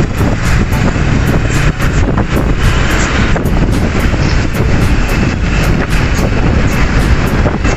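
Truck running close by, a loud, steady rumble with heavy wind buffeting the microphone.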